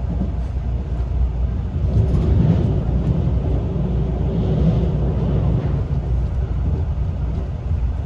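Limited express Shinano, a JR Central 383 series electric train, running with a steady low rumble.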